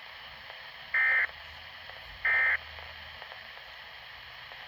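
Two short electronic data bursts, a buzzy warble about a second apart, over steady broadcast hiss. They are SAME end-of-message tones marking the close of an emergency alert weather bulletin.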